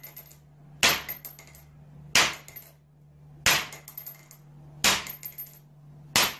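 Pistol fired five times at an even pace, about one shot every second and a third, each shot a sharp crack followed by a brief metallic tinkle. A faint low hum runs underneath.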